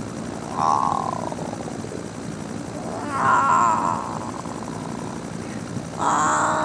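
A monster's roar, three loud roars in a row: about half a second in, around three seconds in and near the end, the first and last falling in pitch.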